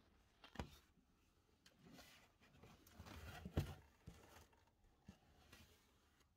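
Near silence broken by a few faint knocks and rustles, the loudest knock about three and a half seconds in.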